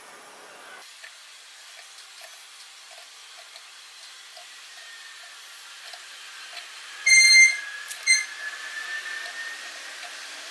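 Felt-tip marker squeaking as it is drawn around a tube: a loud high squeal about seven seconds in and a short one a second later, over faint regular ticking about twice a second.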